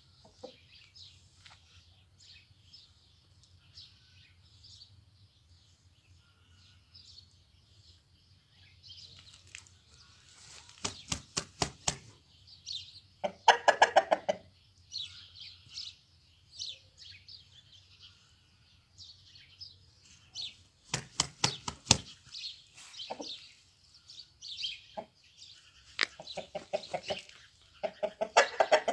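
White Shamo rooster crowing, about halfway through and twice near the end, with short bursts of rapid wing-flapping before the crows. Small birds chirp in the background.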